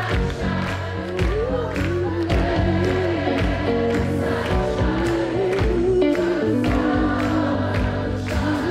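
Live band performance of a pop song: a male vocal group (a Dalmatian klapa) sings in harmony over bass and regular drum beats.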